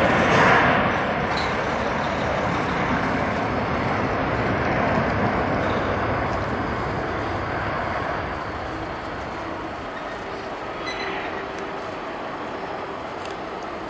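Airbus A330-200 twin-engine jet airliner on its takeoff roll at takeoff thrust, a steady jet engine noise. It is loudest near the start and eases off somewhat about eight seconds in.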